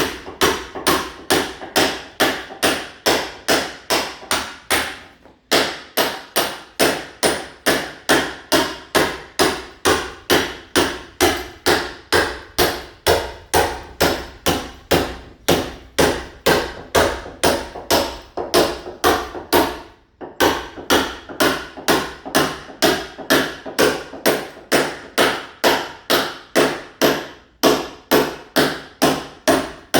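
Mason's club hammer striking a masonry wall over and over, about two blows a second, chipping the wall surface to key it for ceramic tile. The strikes pause briefly three times.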